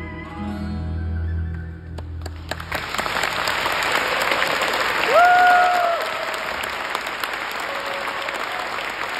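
The last held notes of a sevdalinka on double bass, long-necked lute and kemençe, with a low bass drone, die away about two and a half seconds in. Audience applause then breaks out, with one shouted cheer near the middle.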